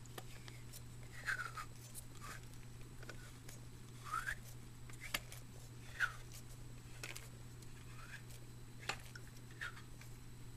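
Two-stroke engine turned over with the spark plug out, its piston giving short, faint grinding scrapes about once a second. These are the sign of a piston and cylinder bore scored from running on gas with no oil.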